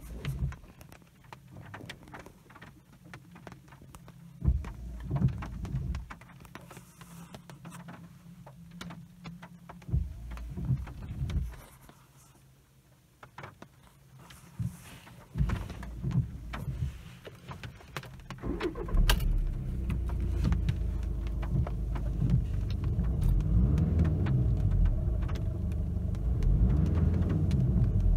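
Scattered knocks and thumps inside the car's cabin, then about two-thirds of the way in the VW Golf Mk7 GTD's 2.0-litre four-cylinder TDI diesel is running and is revved while the car stands still, the revs rising and falling several times.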